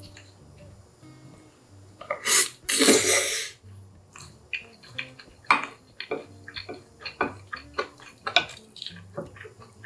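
A person eating Chapagetti noodles close to the microphone: a loud slurp of noodles a little over two seconds in, then wet chewing with many small mouth clicks and smacks, and a wooden spoon scraping the bowl.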